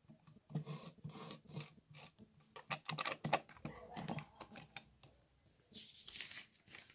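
Plastic LEGO pieces clicking and rattling under the fingers as they are pressed onto the model, in an irregular run of small clicks and taps. Near the end comes a short scraping hiss.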